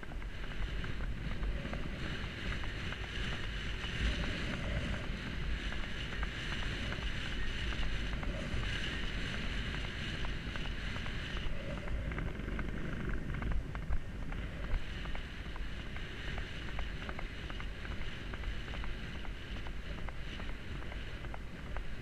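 Wind buffeting a GoPro's microphone on a horse being ridden across open sand, a steady low rumble and rush, with the horse's hoofbeats on the firm sand as many small knocks beneath it.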